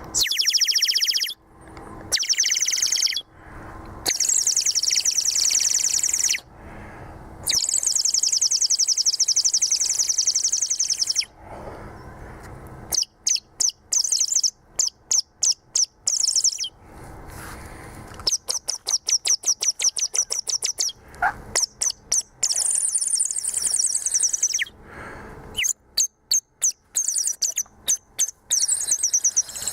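A man whistling through a reed, making a high, bird-like trilling whistle. Long warbling trills of a few seconds each come first, separated by short gaps. In the second half the whistle breaks into runs of short quick chirps, with a few more drawn-out trills between them.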